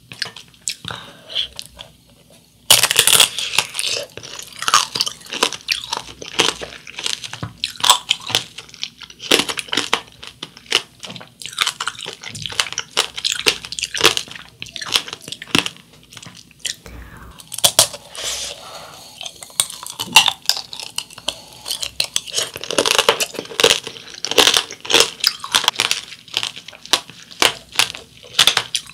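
Close-up crunching and chewing of tangerine tanghulu: the hard sugar coating cracks into many sharp crackles between the teeth as the candied tangerine is chewed. The crunching starts about three seconds in, after a quieter moment.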